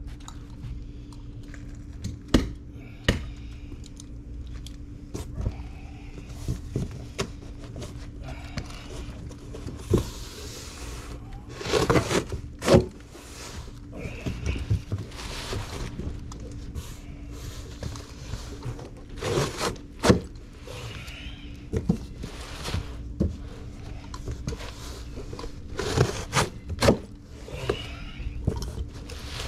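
Irregular metallic clinks, knocks and scraping of hand tools and fittings being handled during plumbing work, with a few longer scraping bursts, over a steady low hum.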